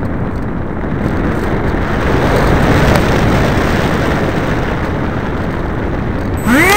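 Wind rushing over the microphone of a tail-mounted MD80 camera on an RC plane in flight, growing louder over the first few seconds. Near the end the plane's electric motor and propeller spool up with a steeply rising whine.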